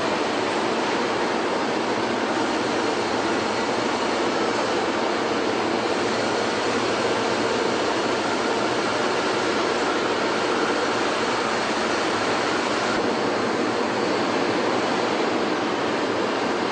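Steady rushing noise of a truck assembly plant floor, with a faint machinery hum; the sound shifts slightly about thirteen seconds in.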